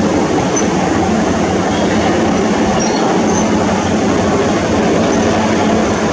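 Twin-engine wheel tractor-scraper's diesel engines running hard and steady under load while its lowered bowl cuts and self-loads soil.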